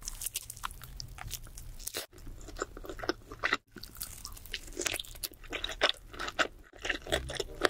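Close-miked eating: a person biting, chewing and smacking mouthfuls of food in quick clicky, wet crackles, cut off by short silent breaks about two, three and a half, and nearly seven seconds in.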